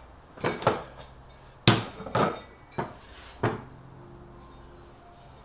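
Irregular sharp knocks and metallic clinks, about seven in all, of hard objects and tools being handled on a workbench. The loudest knock comes at the very end.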